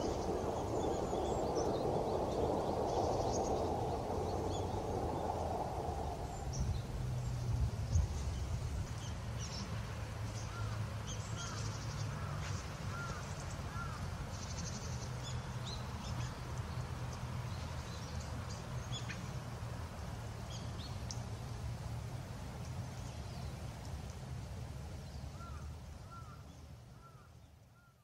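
Wild birds calling: scattered short, high chirps and a few faint rising-and-falling calls over a steady low rumble. A broader noise dies away about six seconds in, and the sound fades out at the very end.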